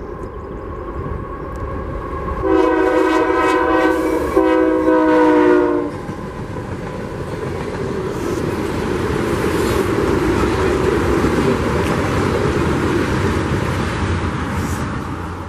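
A freight train led by a Union Pacific locomotive sounds its multi-chime air horn in two long blasts a couple of seconds in, one straight after the other. Its freight cars then roll past with a steady wheel-on-rail rumble and clatter that grows louder.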